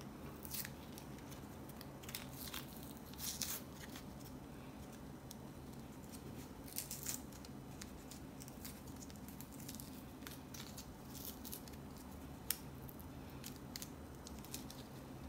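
Faint crinkling and tearing of a coin-cell battery's blister pack as its paper-and-foil backing is peeled away, in short scattered rustles, with one sharp tick about twelve seconds in.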